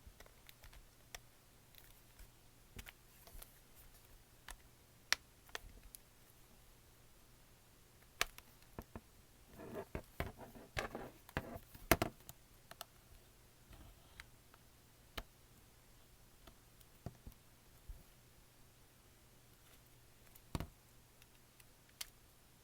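Scattered small clicks and taps of plastic as the clipped-on back cover of an LG tablet is pried off, with a denser stretch of scraping and clicking about ten seconds in.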